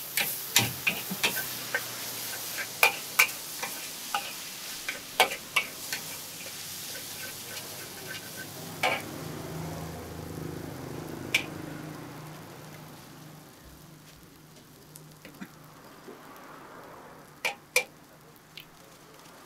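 Food stir-frying in a wok: a steady sizzle with sharp clanks of a metal spatula against the pan, frequent over the first few seconds. The sizzle then dies down, leaving a few clanks near the end.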